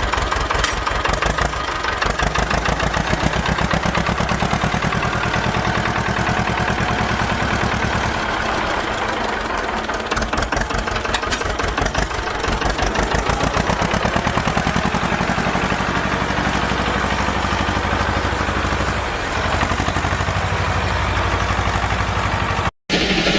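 An engine running steadily with a fast, even chugging pulse. It cuts out for a moment near the end.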